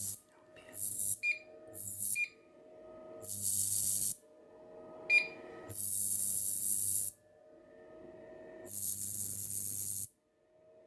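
40K ultrasonic cavitation handpiece running in pulsed mode, hissing as it sprays off the water on its metal face. The bursts lengthen from under half a second to over a second, with an electrical hum under each. Three short touchscreen beeps come about one, two and five seconds in.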